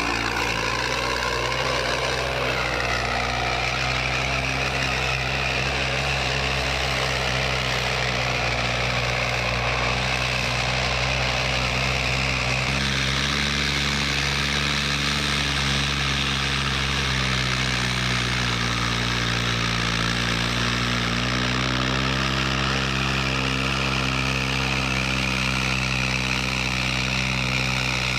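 Diesel tractor engine running steadily, its pitch shifting a little about 13 seconds in and dipping and recovering between about 17 and 22 seconds.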